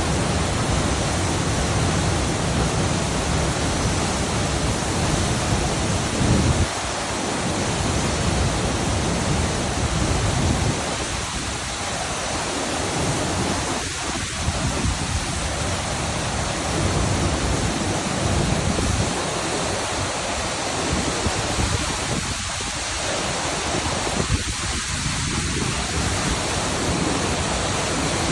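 Jok Kradin Waterfall: a steady rush of falling water, with gusts of wind rumbling on the microphone that come and go.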